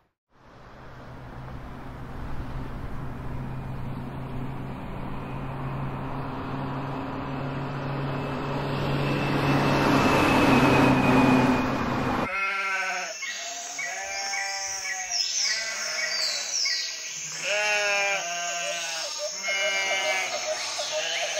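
Library sound effects: a motor vehicle's engine runs with a steady low hum and grows louder over about twelve seconds. It cuts off abruptly, and a chorus of overlapping bleating livestock calls follows.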